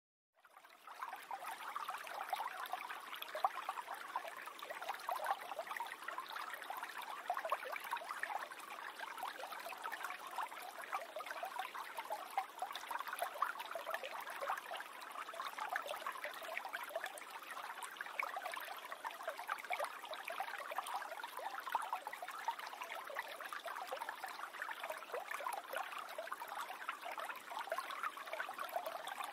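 Small stream babbling and trickling steadily over stones, a continuous wash of water with many small splashes, fading in at the start.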